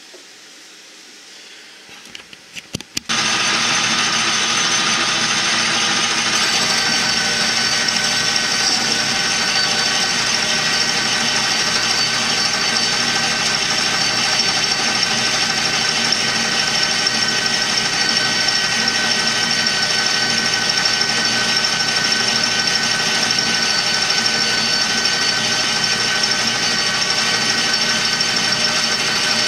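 Metal lathe: a few clicks, then about three seconds in the lathe starts and runs steadily with a constant whine of motor and gears while it takes a light finishing cut along a metal tube.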